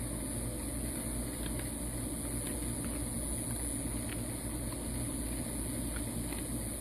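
A steady low mechanical hum, with faint scattered crunching clicks as a Labrador retriever chews a frozen chicken foot.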